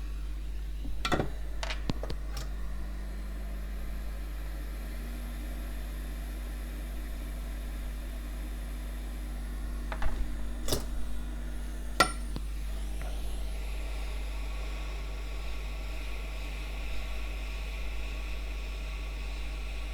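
Steady electrical hum and hiss from the repair bench, with a few light, sharp clicks of small metal tools on the workbench, a cluster about a second in and another around ten to twelve seconds in.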